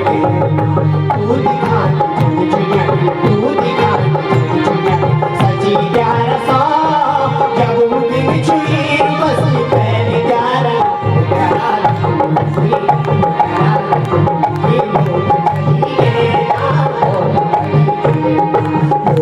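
Kumaoni folk music with a steady tabla-style hand-drum rhythm under a melody line.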